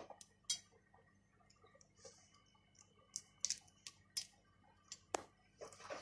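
Whole cloves and green cardamom pods dropped one at a time into a pan of warm desi ghee, making scattered light ticks and faint crackles as they land and start to fry.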